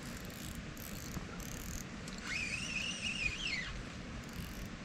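Spinning reel being cranked to bring in a hooked fish, its gears giving a whine that rises, holds for about a second and a half, then falls away, over low rod-handling rumble.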